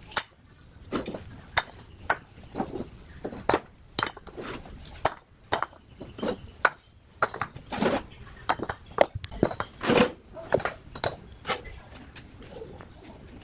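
Irregular clicks, taps and scuffs, several a second, from a steel tape measure being pulled out, flexed and laid across bricks, with sandalled feet shifting on dirt.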